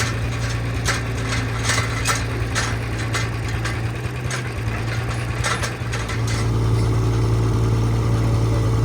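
An engine running steadily, with irregular knocks and clicks over it for the first six seconds. The engine grows louder about six seconds in.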